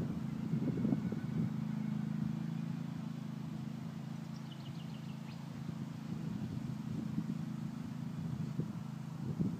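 Zero-turn ride-on mower's engine running steadily off at a distance, a little weaker midway and picking up again toward the end. A short run of high chirps about halfway through.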